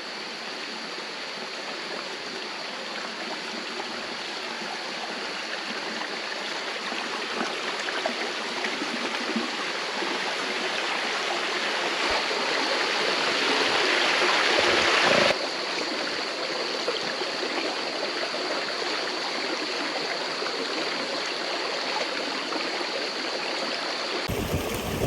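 Rushing water of a rocky rainforest stream cascading at the head of a waterfall, a steady rush that grows louder, drops suddenly about fifteen seconds in, and changes abruptly again near the end. A thin, steady high whine sits above the water until near the end.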